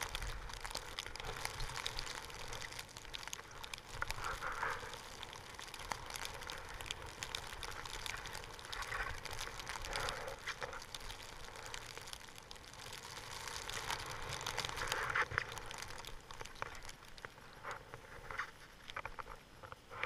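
Skis running through deep powder snow: an uneven rushing hiss with scattered crunches and knocks, swelling louder a few times.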